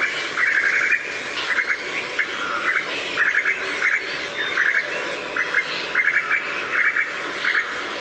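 Recorded call of a female Asian koel: short, rapid runs of stuttering notes repeated about twice a second.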